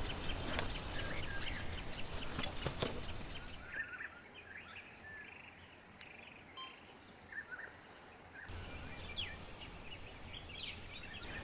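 Outdoor streamside ambience: a steady high-pitched insect trill sets in about three seconds in and holds, with scattered short bird chirps. A few faint clicks sound in the first three seconds.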